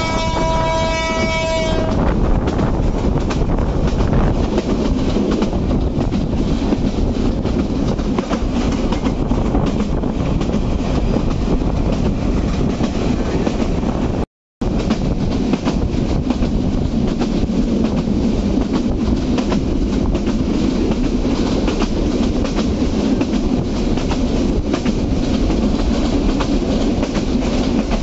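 Karotoa Express passenger train running, heard from aboard: a steady rumble of wheels on the rails. A train horn holds one long tone that cuts off about two seconds in, and the sound drops out for a split second about halfway through.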